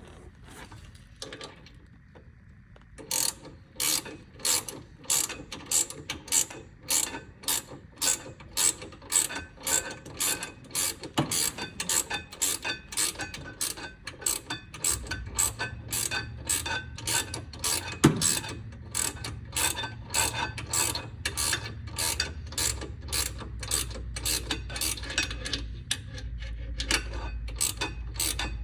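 Hand ratchet wrench clicking in quick, evenly repeated strokes as a bolt is worked on the brake assembly, starting about three seconds in. A low steady hum joins about halfway through.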